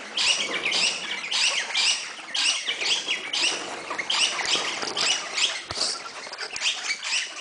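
A crowd of birds screeching and chattering, harsh high calls repeating about twice a second, some with quick sliding notes.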